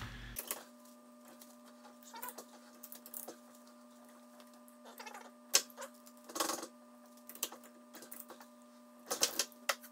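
A torque wrench on a fixture plate turning a Jaguar F-Type V6S limited-slip differential held in a vise, as its clutch pack is driven into breakaway for a torque test. The sound is scattered metal clicks and a few short creaks, with a cluster of clicks near the end.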